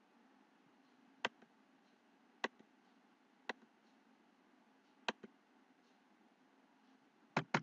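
Computer mouse clicking: several single sharp clicks a second or so apart, then a quick double-click near the end, over a faint steady hum.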